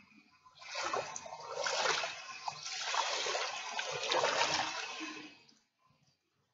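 Shallow water splashing and sloshing as hands stir it, starting about half a second in and dying away about a second before the end.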